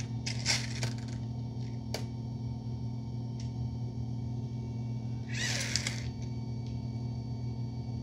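Roborock Saros Z70 robot vacuum folding its robotic arm down into the top hatch: a steady low motor hum with a few small mechanical clicks in the first couple of seconds, and a brief higher-pitched sound about five and a half seconds in.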